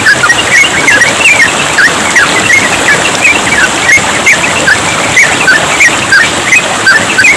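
Sooty-headed bulbul singing a fast, unbroken run of short whistled notes over the steady trickle of running water.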